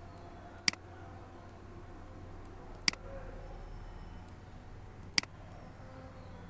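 Three sharp computer mouse clicks, about two seconds apart, over a faint low hum.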